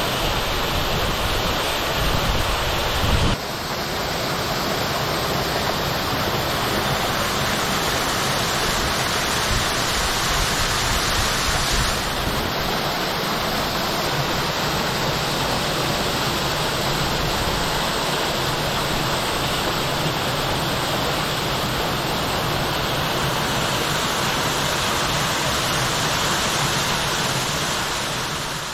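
Waterfall rushing: a steady, full roar of falling water. The sound shifts abruptly about three seconds in and again about twelve seconds in, and fades out at the very end.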